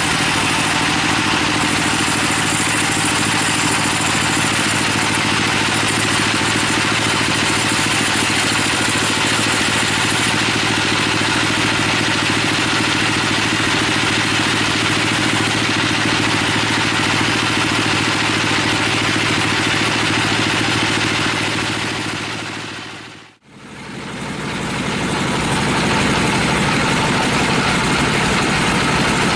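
Band sawmill running and cutting through a teak log: a steady machine hum under a dense, even hiss from the blade. About 23 seconds in, the sound fades out to almost nothing for a moment and fades back in.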